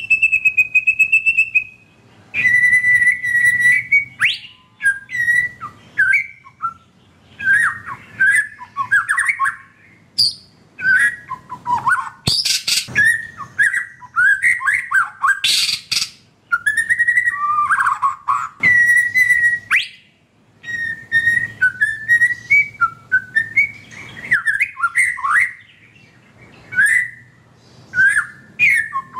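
White-rumped shama singing a varied song. It opens with one long held whistle, then runs on in clear whistled phrases and trills, with two harsh rapid chatters around the middle.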